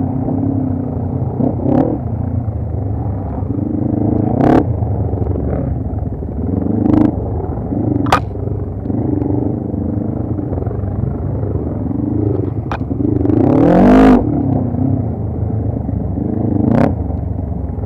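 ATV engine running, its pitch rising and falling with the throttle, with a strong rising rev about three-quarters of the way through. Sharp knocks and clatter come now and then.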